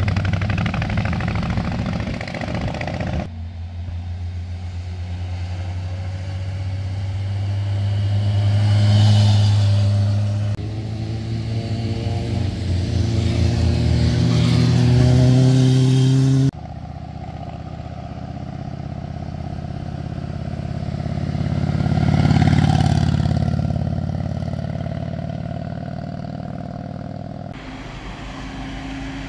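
Motorcycle engines passing through hairpin bends, one bike after another, each note swelling as it nears and rising in pitch as it accelerates out of the bend. The sound changes abruptly several times as one pass cuts to the next.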